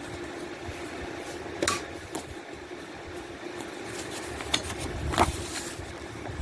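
A handful of sharp clicks and taps from a plastic disc case and its packaging being handled, the loudest about five seconds in, over a steady hum.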